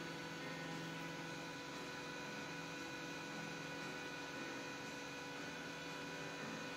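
Steady electrical hum with several faint whining tones held at constant pitch over a light hiss; nothing from the feeding raccoons stands out above it.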